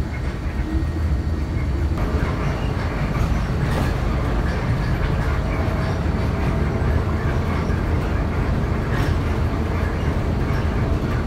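Cabin noise of a moving TransJakarta city bus heard from inside: a steady low engine and road rumble with a few faint knocks.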